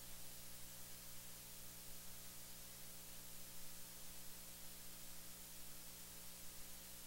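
Steady hiss with a faint low hum underneath: the recording's background noise, with nothing else sounding.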